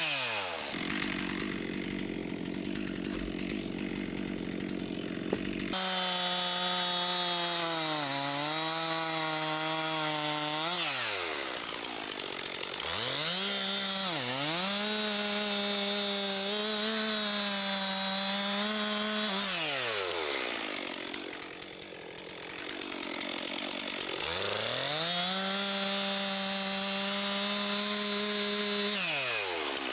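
Two-stroke chainsaw bucking hardwood logs into 16-inch firewood lengths. It revs to full throttle for three cuts of several seconds each, with the pitch sagging now and then under load, and drops back to a rough idle between cuts.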